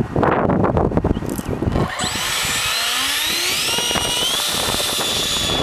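RC plane's electric motor and propeller spinning up: a whine rising in pitch from about two seconds in, then holding steady at high throttle. Handling knocks and rustling come before it.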